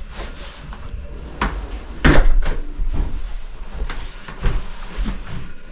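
A string of separate knocks and bangs, the loudest about two seconds in followed by a short scrape.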